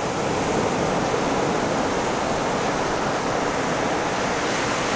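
Ocean surf washing on the beach, a steady rushing noise with no single wave crash standing out.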